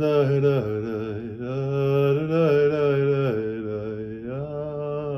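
A singing voice holding a slow line of long notes, each about a second, stepping up and down in pitch.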